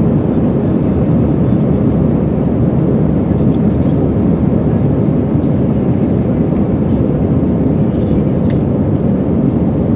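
Airbus A320 jet engines and airflow heard from inside the passenger cabin as a loud, steady low rumble during takeoff and climb.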